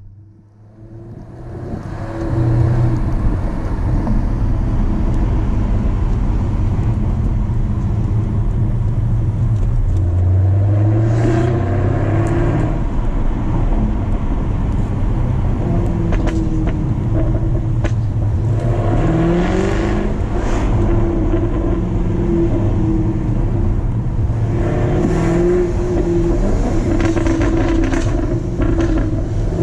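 Jaguar F-Type R AWD's supercharged 5.0-litre V8 on its stock exhaust, being driven: the engine note rises several times under acceleration, with sharp exhaust pops and crackles between the pulls. It fades in over the first two seconds, then stays loud.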